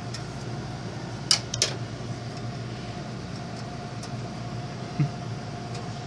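A steady hum, with two light sharp clicks about a second and a half in and a smaller knock near the end: a screw and screwdriver clicking against a Wi-Fi card's metal bracket in a PC case.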